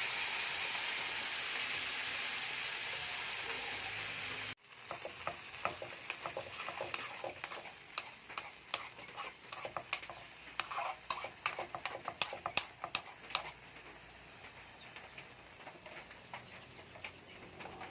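Onion, garlic and ham sizzling in hot oil in a frying pan, a steady hiss that cuts off abruptly about four and a half seconds in. Then a cooking utensil clicks and scrapes against the pan as the food is stirred, busiest in the middle and thinning out near the end.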